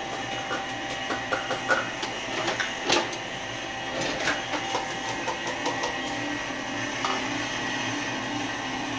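KitchenAid Classic stand mixer running steadily, its motor humming as it beats cake batter. A few sharp clicks and knocks come over the hum in the first half.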